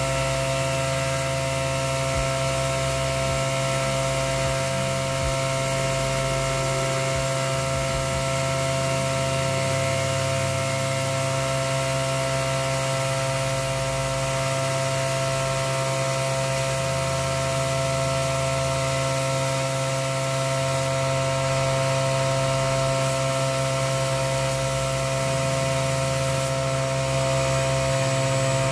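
Air-fed gravity-cup spray gun hissing steadily as it sprays primer, over a constant machine hum with steady tones, typical of an air compressor running. The highest part of the hiss thins twice in the last third, as the trigger is let off.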